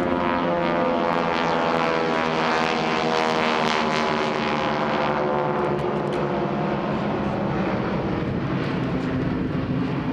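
Four North American Harvard trainers' radial engines and propellers droning in formation flypast. The sound is fullest in the first half, then its pitch sinks slightly and it grows duller as the formation passes and pulls away.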